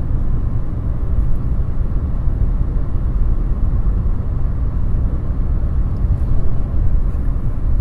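Steady low rumble of a car driving along a road, heard from inside the moving car: tyre and road noise with wind.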